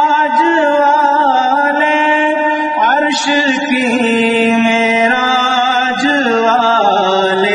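A man singing an Urdu naat (devotional song in praise of the Prophet) into a close microphone, drawing out long, ornamented notes that glide and waver without a break.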